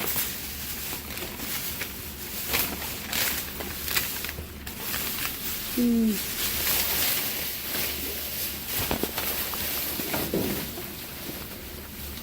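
Rustling and knocking of packaged food and bags being handled and rummaged through, over a steady hiss, with a brief falling vocal sound about six seconds in.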